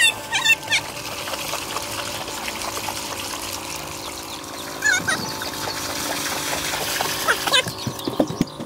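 Water pouring steadily from a bamboo pipe and splashing into a pool. Short bird calls break in near the start and about five seconds in.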